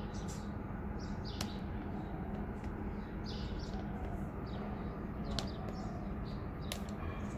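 Small birds chirping in short, repeated calls over a steady low hum of outdoor background noise, with a few faint clicks.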